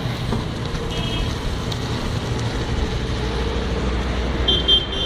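Auto-rickshaw engine running steadily close by, a low rumble.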